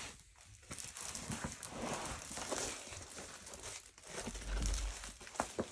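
Plastic film crinkling and rustling as a diamond painting canvas is handled, with a soft low bump a little over four seconds in.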